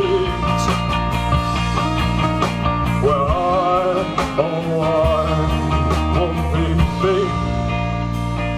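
Live rock band playing an instrumental passage between vocal lines: a wavering lead melody over guitar, bass and steady drum hits.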